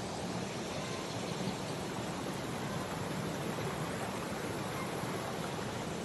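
A steady, even rushing noise with no separate events in it.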